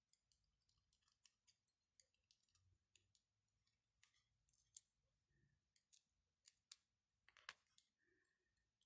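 Faint, irregular clicks and ticks of small 3D-printed plastic counter wheels being handled and turned, with tweezers tapping against the parts. A few sharper clicks come late on.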